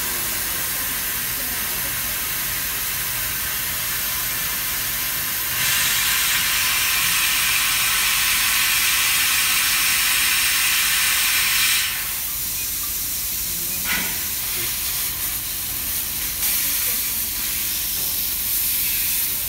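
Laser engraving machine at work: a steady hiss of blowing air, louder for about six seconds midway. From about twelve seconds in it turns to an uneven crackling sizzle, with a sharp click near fourteen seconds, as the laser beam burns into the workpiece.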